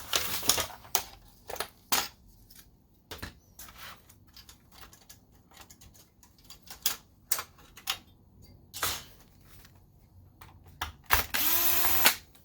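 Clicks and knocks of small parts and a hand tool being handled, then a small power driver spinning for about a second near the end, its motor whine rising as it spins up. It is backing out the fasteners holding the projector's main board.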